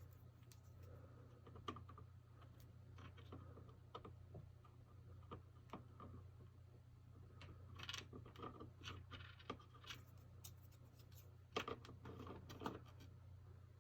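Faint, scattered clicks and light taps of hands working the plastic catches and parts on the back of a flat-screen TV, over a steady low hum. The clicks come thickest about eight seconds in and again near the end.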